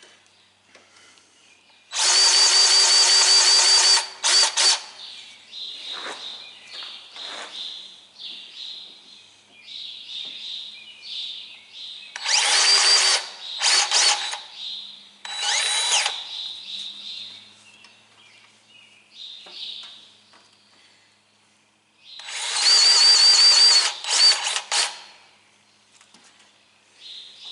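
Battery-powered grease gun motor running in five bursts of a half second to two seconds, with a steady whine, pumping grease into the baler's fittings. Light clicks and knocks come between the bursts.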